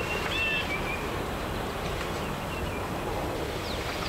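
Steady outdoor wind noise, with a songbird's whistled call about half a second in and a few faint high chirps near the end.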